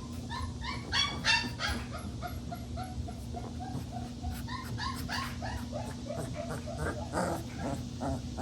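Young Boerboel puppies whimpering and yipping: a rapid string of short, high-pitched cries, several a second, loudest about a second in.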